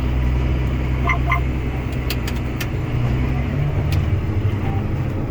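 John Deere 7215R tractor's diesel engine running with a steady low hum that shifts slightly in pitch about three and a half seconds in, with a few sharp clicks around the middle.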